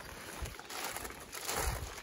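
Plastic bag rustling and crinkling as it is shaken out, with a couple of dull low thumps.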